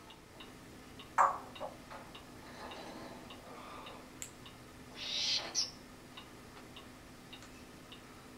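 African grey parrot making a few short sounds: a sharp loud one about a second in, a smaller one just after, and a noisy, breathy one about five seconds in. A clock ticks faintly about twice a second behind it.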